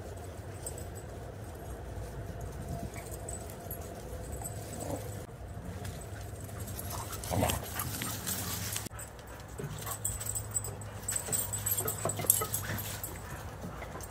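Dogs in a group making dog sounds, loudest about seven and a half seconds in, with scattered light clicks later on. A steady low hum runs underneath.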